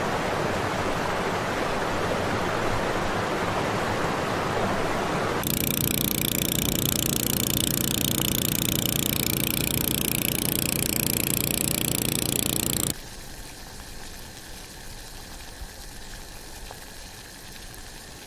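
Steady rushing of river water. About five seconds in it switches abruptly to a louder, steady drone with a low hum, and near thirteen seconds it cuts sharply to a much quieter hiss.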